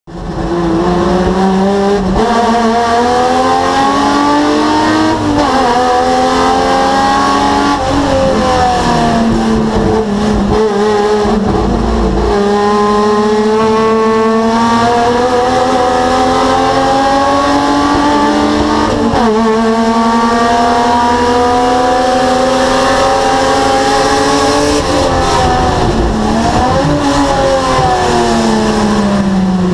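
Chevrolet race car engine heard from inside the cockpit under hard acceleration. The engine note climbs steadily and drops back several times.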